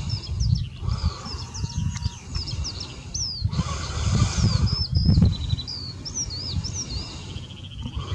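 Small birds chirping and singing over and over, quick sweeping notes, over an uneven low rumble, with a brief rush of noise about three and a half seconds in.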